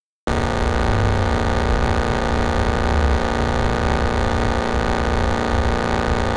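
Electronic darkwave music: a loud, dense, distorted synthesizer chord with heavy bass starts suddenly just after the beginning and holds steady.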